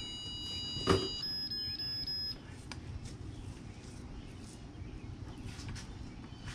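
Minn Kota Terrova trolling motor beeping as its power button is held to pair it with the heading sensor: a steady high beep that stops about a second in, then a quick string of about four short beeps lasting about a second. A single sharp knock about a second in.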